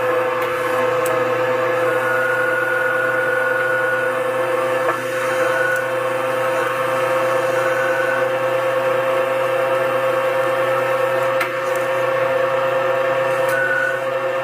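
A machine motor running at a constant speed: a steady, loud hum with a held pitch and a few brief higher tones over it.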